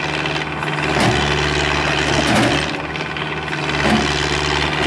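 Excavator's diesel engine running under load. The engine sound swells and eases several times as the machine works.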